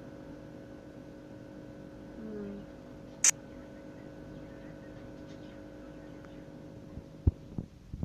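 Steady electrical hum, with one brief sharp high squeak about three seconds in and a few low thumps near the end.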